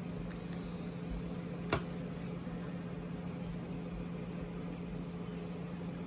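Steady low electrical hum of room noise, with a single faint click about two seconds in.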